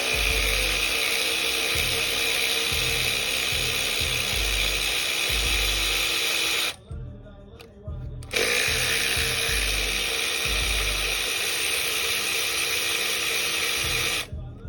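Handheld power tool spinning at steady speed in two long runs of about six seconds each, with a short pause between, as fasteners are run out during an engine teardown. A low, regular beat runs underneath.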